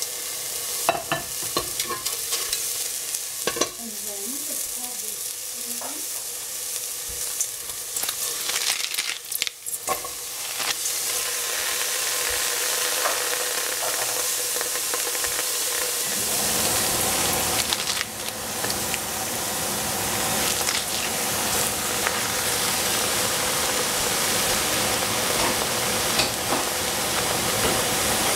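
Green cabbage and tofu sizzling in a frying pan while being stirred, with scattered clicks and scrapes of the utensil against the pan in the first half. About halfway through, a steadier, deeper rushing noise joins the sizzle and carries on.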